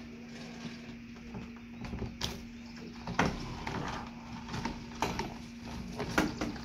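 A large corrugated plastic insulation hose being pushed through an aluminium window-mounted hose guide, with several sharp knocks and scrapes as it bumps and rubs the frame. A steady low hum runs underneath.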